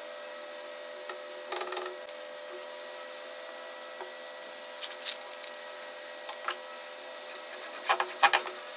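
A steady electrical hum throughout, with a few light knocks and rubs of wood being handled. Near the end a cordless drill-driver runs in several short, loud bursts, driving a screw into pallet wood.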